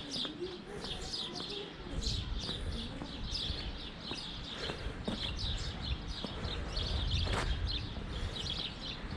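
Small birds chirping: rapid, repeated short high chirps that overlap throughout, over a low rumble.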